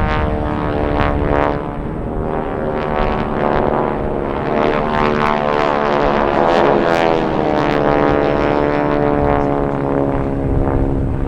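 Several T-6/SNJ Texan warbirds' Pratt & Whitney R-1340 radial engines and propellers flying over in formation. Their overlapping engine tones slide and cross in pitch, then fall as the planes pass overhead.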